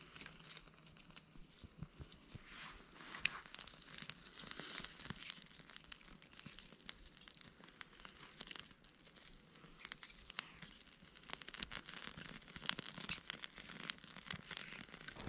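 Small newly lit kindling fire of feather-stick shavings and split wood crackling faintly, with scattered light clicks and knocks as thin split sticks are laid onto the flame.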